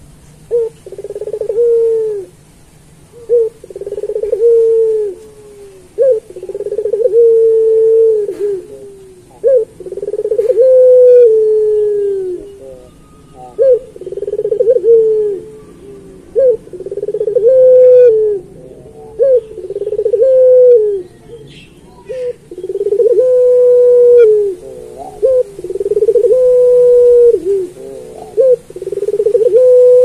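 Caged puter pelung, the long-voiced Indonesian strain of Barbary dove, cooing over and over in a steady run. Each coo is a short note followed by a long held note that drops at the end, one every one and a half to two seconds.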